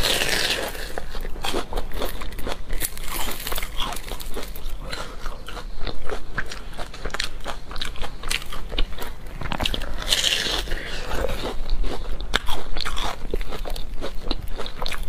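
Bites into a crusty round bun, the crust crunching and crackling, followed by chewing with many small crackles; a second big crunchy bite comes about ten seconds in.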